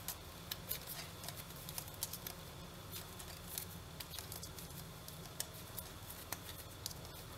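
Knitting needles clicking and tapping faintly and irregularly as stitches are worked, over a low steady hum.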